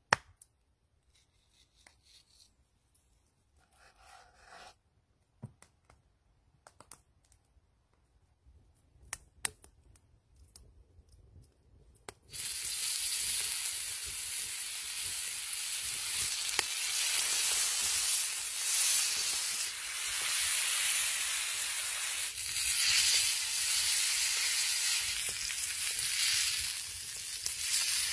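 Tomahawk ribeye steak searing on a hot cast iron griddle, starting with a sudden loud sizzle about twelve seconds in as the meat goes onto the metal and then sizzling steadily. Before that there are only faint scattered clicks.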